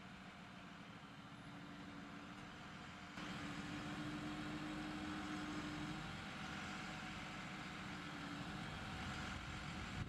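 Engine of an Altec aerial-lift bucket truck running at a steady speed, a low, even hum. It steps up in loudness suddenly about three seconds in.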